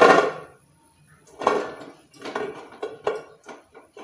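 Indian gooseberries (amla) dropping into a stainless steel steamer tray, the rattle dying away within half a second, then a string of short knocks as the fruits are pushed around by hand against the steel.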